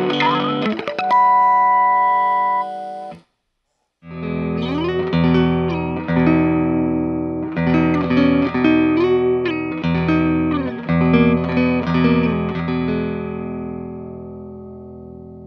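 Electric guitar (Baranik B-1) played through an amp, a Otis. A held chord rings and cuts off about three seconds in. After a second of silence a new phrase starts, with slides between notes, and fades away near the end; during this phrase the Empress Compressor mkII is bypassed, so the guitar sounds dry and uncompressed.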